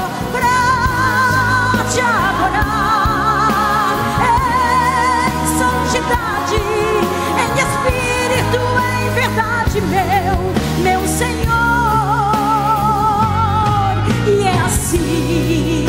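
A woman singing a Portuguese gospel worship song live, holding long notes with vibrato over instrumental accompaniment.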